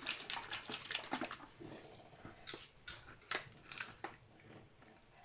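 A plastic bottle of kefir being shaken and handled: quick irregular sloshing and rustling, then a few sharper clicks of the bottle and its cap about halfway through.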